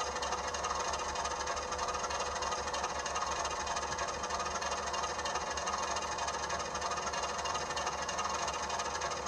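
HO-scale diesel locomotive's DCC sound decoder playing a steady idling engine through its small speaker, with a pulsing low rumble. The Walthers 90-foot motorised turntable's drive turns the bridge underneath it.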